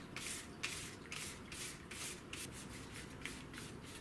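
A paintbrush brushing paint onto a paper bag in quick, faint back-and-forth strokes, about three a second.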